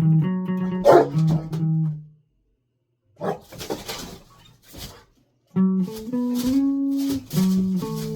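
Plucked guitar played in single notes that break off for about a second, then a few short scratchy strums, then a short gap before the notes resume. The guitar is played untuned, by the players' own admission.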